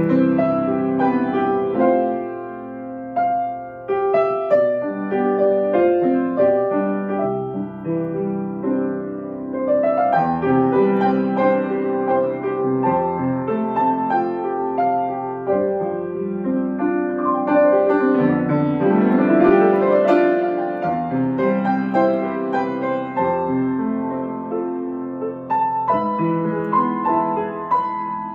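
Solo grand piano playing a gospel worship-song medley, with sustained chords and rising runs about 10 and 19 seconds in.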